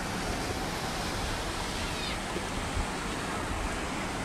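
Ocean surf breaking and washing up a sandy beach: a steady, even rushing noise.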